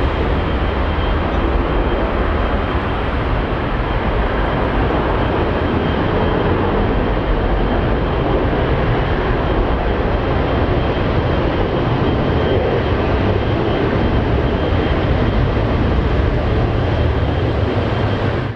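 Airbus A321-211's CFM56-5B turbofan engines at takeoff thrust as the jet lifts off and climbs away: a loud, steady roar with a thin high whine running through it. The sound cuts off suddenly at the very end.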